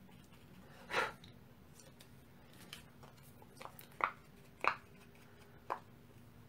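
Large ink blending brush swished over the edge of a small cardstock circle: about six short, scratchy strokes, the loudest about a second in and two more near the four-second mark.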